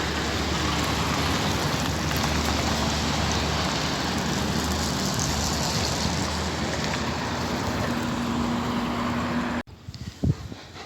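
Wind buffeting the microphone outdoors, a steady loud rushing noise that cuts off suddenly near the end.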